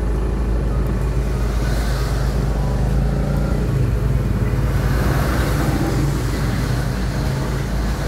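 A motor vehicle engine running steadily with a low, even rumble.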